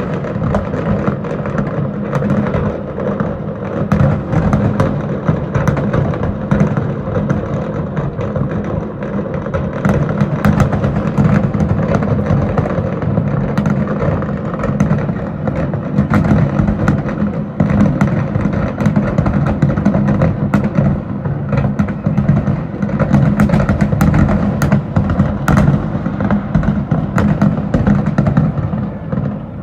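Fireworks display: a continuous run of bangs and crackles, denser in the second half, over music playing underneath.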